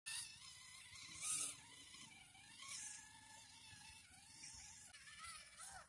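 Faint whine of a WPL C14 RC crawler's small electric motor and gearbox, its pitch wavering up and down with the throttle as the truck climbs a muddy slope, with a few brief louder hissy swells.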